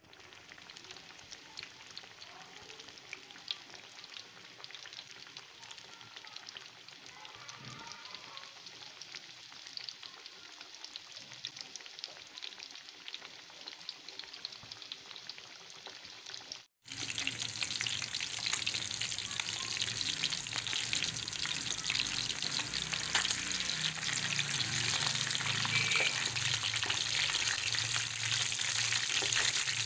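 Masala-coated fish pieces shallow-frying in hot oil in a pan: a steady, dense crackling sizzle that becomes louder after a break about two-thirds of the way through.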